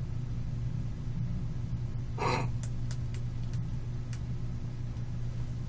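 A steady low hum carries on throughout. A little over two seconds in there is a short breath-like sound, like a gasp, followed by a few faint clicks.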